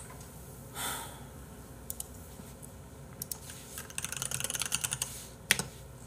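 Typing on a computer keyboard: a few single key clicks, then a quick run of keystrokes, ending in one sharper, louder stroke near the end, as a search is typed in and sent.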